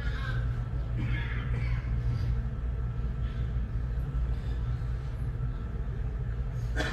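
Steady low rumble of room noise in a silent prayer hall, with faint rustles in the first couple of seconds and a short burst of noise near the end.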